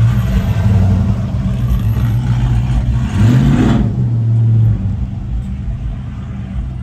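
Pickup truck engine running with a loud, low exhaust note, revved once about three seconds in. The engine sound drops away quickly a little over a second later.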